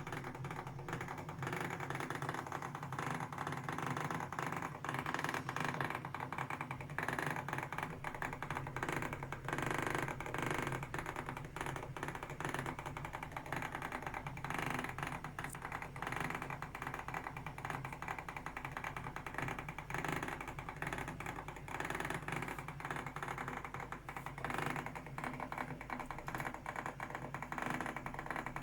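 Tefal Multicook & Stir multicooker's motorised stirring mechanism running with a continuous rapid rattling, grinding noise, which the owner calls awful.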